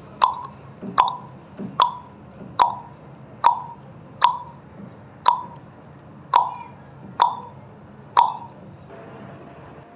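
Countdown timer sound effect: a sharp tick about once a second, ten in all, over a low steady hiss. The ticks stop a little past eight seconds in as the count reaches zero.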